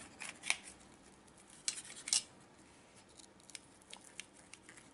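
Small kitchen knife cutting through a thick chickpea-flour omelette, its blade scraping against the steel plate beneath in a few short strokes, the strongest about two seconds in, followed by lighter ticks.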